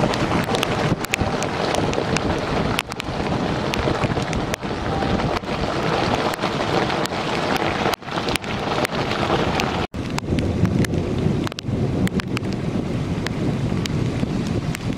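Hail and rain pouring down with wind buffeting the microphone, many sharp clicks of hailstones striking all through it. The sound cuts out briefly twice past the middle.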